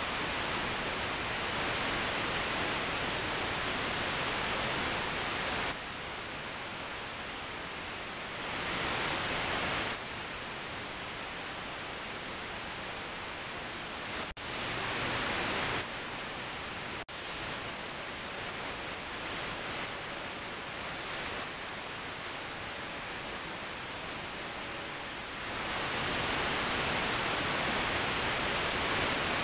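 FM radio static: a steady hiss from a phone's FM tuner with no station coming in as the dial is moved. The hiss steps louder and softer several times, with two brief dropouts around the middle.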